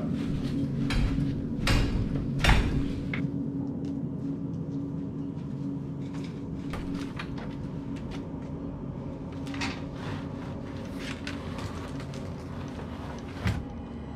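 Metal elevator doors being pulled at by hand, clanking and knocking several times in the first few seconds with one loud knock. Later come a few lighter clicks of a lever door handle, and a wooden door thumps as it is pushed open near the end.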